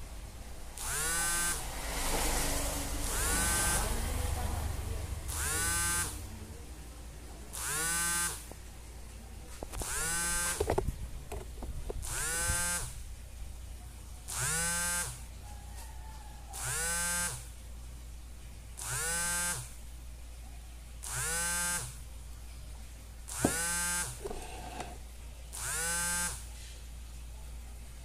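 A small electric motor whirring in short bursts about every two seconds, the pitch rising briefly as it spins up each time.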